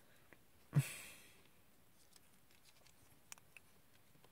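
Quiet handling of small plastic model-kit parts: a short exhale about a second in, then two faint light plastic clicks near the end.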